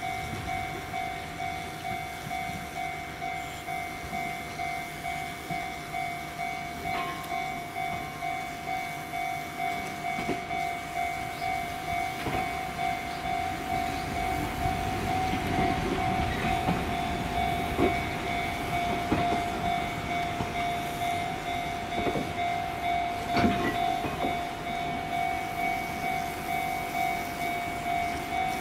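A level-crossing alarm rings a steady, evenly pulsing electronic ding while an Izuhakone Railway 5000-series electric train rolls slowly past. Now and then its wheels clack over rail joints, and the loudest clack comes near the end.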